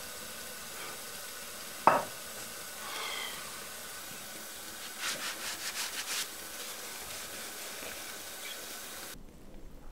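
A single sharp knock about two seconds in, then a quick run of scraping strokes a few seconds later, over a steady hiss.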